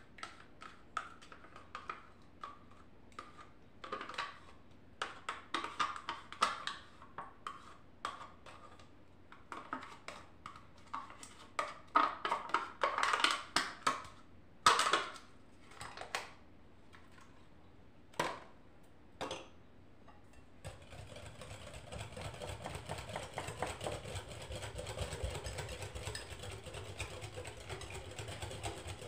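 A plastic yogurt tub is knocked and scraped against the rim of a mixing bowl as it is emptied into cake batter, giving a run of irregular clicks and knocks. About two-thirds of the way through, a hand whisk starts beating the batter in the bowl, a steady quick patter.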